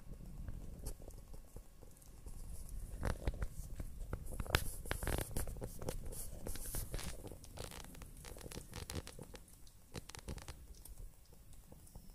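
Two-week-old kittens suckling at their mother, giving irregular wet smacking clicks that crowd together in the middle and thin out near the end, over a low steady rumble.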